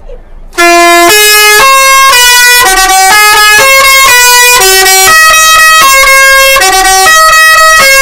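Basuri telolet horn on a Sumber Jaya bus playing a very loud tune. The tune starts suddenly about half a second in, and its short horn notes change pitch about twice a second.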